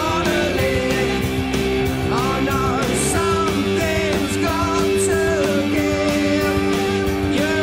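Rock music with a sung vocal over a steady drum beat.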